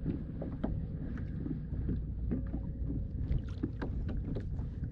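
Water lapping against a kayak hull, with wind rumbling on the microphone and scattered small taps and knocks.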